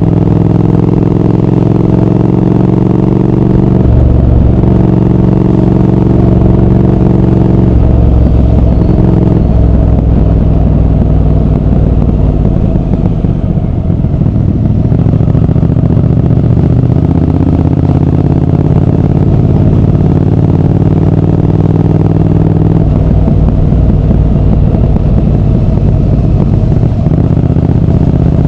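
Triumph Speed Twin 1200's parallel-twin engine and exhaust under way, pulling up through the gears: the pitch climbs and then drops at upshifts about 4 and 8 seconds in, eases off for a few seconds around the middle, then climbs steadily again before another shift near the end.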